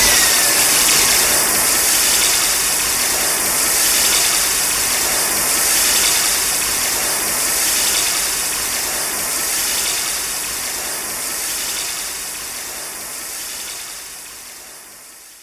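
Kiryu Mechagodzilla (2002–2003) film sound effect: a loud, steady mechanical rushing hiss with a brief falling tone at the start, swelling slightly about every two seconds and fading away near the end.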